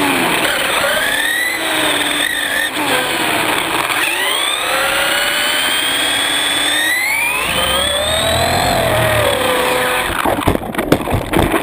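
Onboard sound of a Traxxas electric RC truck at speed: the brushless motor and gears whine, rising in pitch with each burst of throttle and dropping between, over tyre and road noise. About ten seconds in come a few sharp knocks and rattles.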